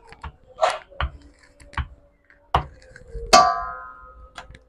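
Stainless steel rolling pin knocking and rolling on dough over a silicone mat: a handful of light knocks, one a little past three seconds in leaving a metallic ring that fades over about a second.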